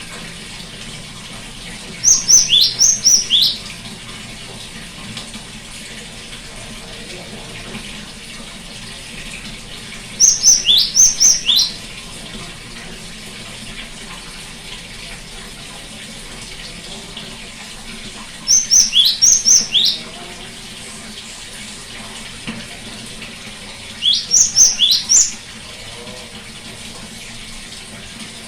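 Great tit (gelatik batu) singing four bursts of its song, each a quick run of sharp notes falling in pitch and lasting about a second and a half, several seconds apart. A steady hiss runs underneath.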